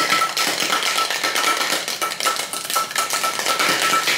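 Cocktail shaker (metal tin with a glass sealed into it) being shaken hard, ice clattering inside in a rapid, continuous rattle.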